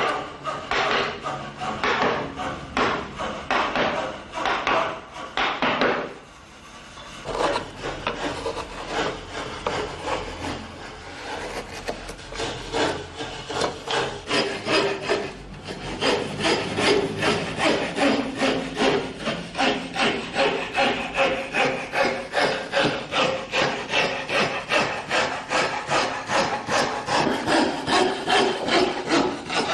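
Hand tools working soft wood: rhythmic rasping and cutting strokes, with a short pause about six seconds in. From about halfway a fine saw blade cuts through a wooden ornament in a steady rhythm of two or three strokes a second.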